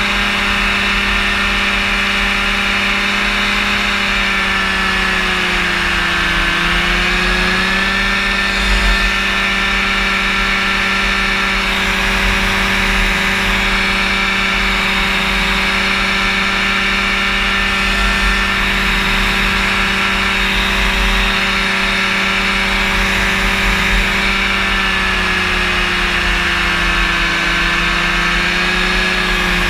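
Rotax engine and propeller of a powered parachute droning steadily in flight. The engine speed sags and comes back up twice, about five seconds in and again near the end.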